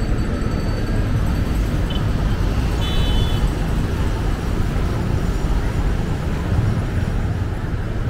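Steady road traffic noise from a busy city boulevard: a continuous rumble of passing vehicles with no single event standing out.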